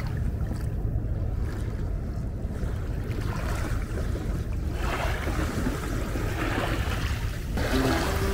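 Wind rumbling on the microphone over small waves washing on a pebble shore. The hiss of the water grows louder from about five seconds in and drops away shortly before the end.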